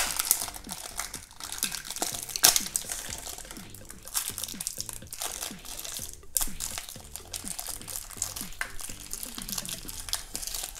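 Crinkly packaging being handled and opened by hand, with many short crackles, as a small surprise toy is unwrapped.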